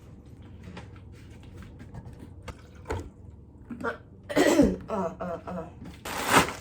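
A person coughing, a loud cough about halfway through and another near the end, over faint clicks from handling a package.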